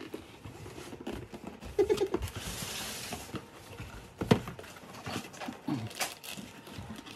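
Blue cardboard parts box being handled and opened: cardboard rubbing and scraping, a longer sliding hiss in the middle, and a sharp knock about four seconds in.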